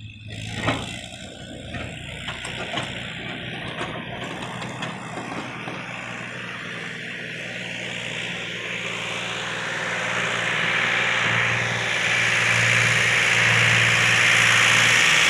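Sonalika tractor's diesel engine running steadily as the tractor moves off with its empty tipping trailer, growing louder in the second half. A single knock about a second in.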